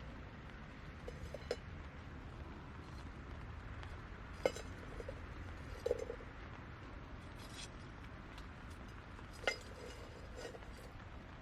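A few sharp clinks of cooking utensils against cookware, each ringing briefly, the loudest about halfway through, over a steady low background.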